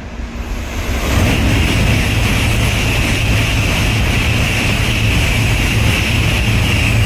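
N700-series Shinkansen passing through the station at speed without stopping: a loud rush of air and rolling wheels that builds about a second in and then holds steady, with a high hiss over a deep rumble.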